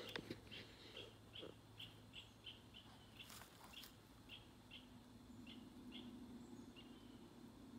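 Repeated short high chirps, about two or three a second, spacing out toward the end, from a small animal in the woods. A few brief rustles and crackles of leaves and twigs come from the dog nosing in the undergrowth near the start and again about three seconds in.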